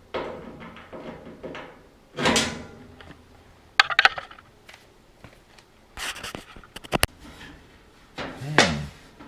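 A few clicks and knocks from a tool fitted with a 1/4 inch socket being handled and set against the dryer's back cover, with brief louder handling noises in between.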